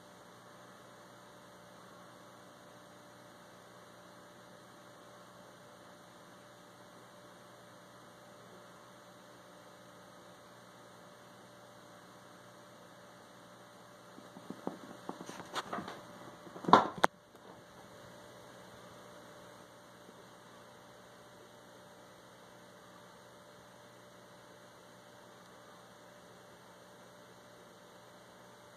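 Steady faint electrical hum. About halfway through comes a short run of clicks and knocks, ending in one sharp, louder knock.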